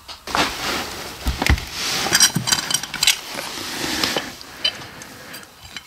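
Irregular clinking and clattering of small hard objects, with a couple of dull low thumps about a second and a half in.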